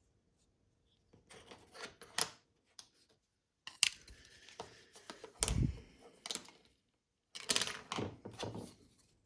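Plastic car-key shell parts being handled and slid against each other: several spells of small clicks and scraping, with a dull knock about five and a half seconds in.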